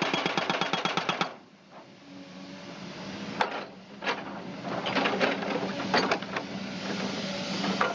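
Drilling machinery hammering rapidly, about a dozen strokes a second, for the first second and a half. Then a steady mechanical whirr with a low hum and scattered sharp clicks.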